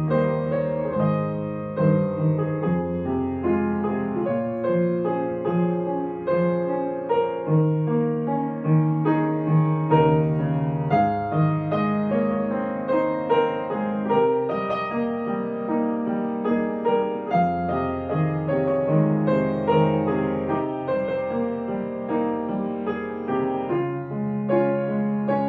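Piano music, a steady run of struck notes over held low notes.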